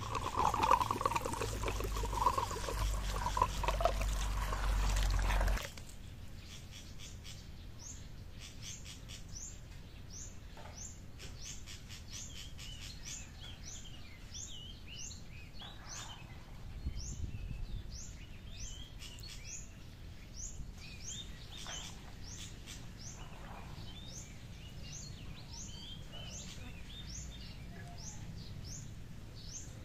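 Water poured from a gourd container splashing into a basin of coffee cherries for about the first five seconds, stopping suddenly. After that, a bird chirping over and over in short falling chirps, about one and a half a second, with fainter calls of other birds now and then.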